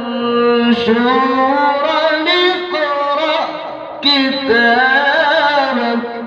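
A male Quran reciter chanting in the slow, melodic tajweed style, drawing out long ornamented notes that rise and fall in pitch. He pauses briefly just before four seconds in, then comes back in strongly.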